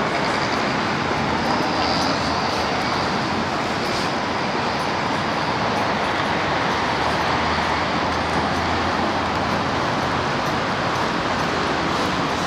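Steady city road traffic noise, vehicles running along the street.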